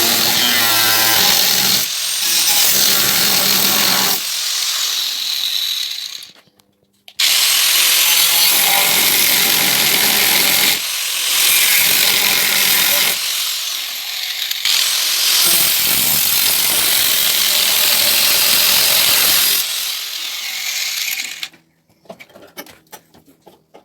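Angle grinder with a cutting disc cutting through rusty sheet steel in the inner skin of a van's sliding door. It runs in several long stretches and drops out briefly about six seconds in. It stops shortly before the end, leaving light clicks and knocks.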